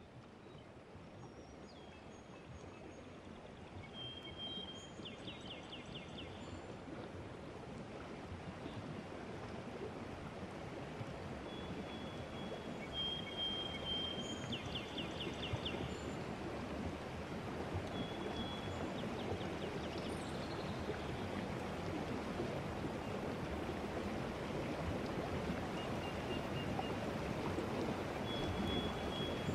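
Running-water ambience, like a stream, fading in gradually, with short high chirps at intervals, some broken into quick trills.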